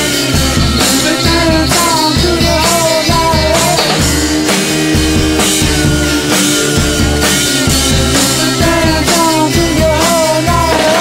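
Rock music with drums, guitar and a wavering sung melody over a steady beat.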